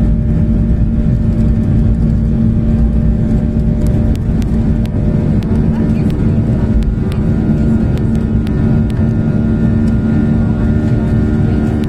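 Airliner's engines at takeoff power heard inside the cabin during the takeoff roll: a loud, steady rumble with a steady hum, and short clicks and rattles from about four seconds in.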